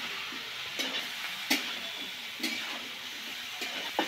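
Cauliflower and potato pieces sizzling in hot mustard oil in a steel karai, while a metal spatula stirs them and scrapes and clinks against the pan about five times.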